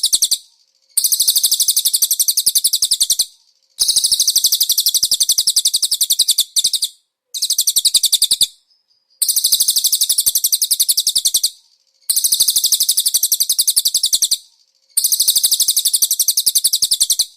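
Cililin bird singing a high-pitched, rapid trill in repeated phrases of about two seconds, with short pauses between them.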